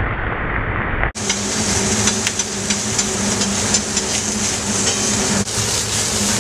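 Ground-pork patty sizzling as it sears in a hot black carbon-steel pan over a gas burner, with many sharp pops of spattering fat over a steady low hum. About a second in the sizzle turns brighter and more crackly.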